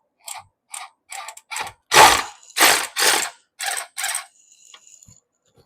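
Jack being lowered under the engine and transmission: a run of about nine uneven ratcheting, rasping strokes, the loudest about two seconds in, dying away near the end.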